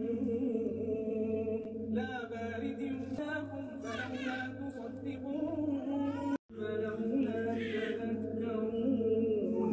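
Quran recitation: a single voice chanting Arabic verses melodically in long, drawn-out notes, breaking off for a moment about six and a half seconds in.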